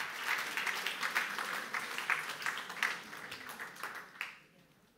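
Audience applauding, a dense patter of many hands that tapers off and dies away about four and a half seconds in.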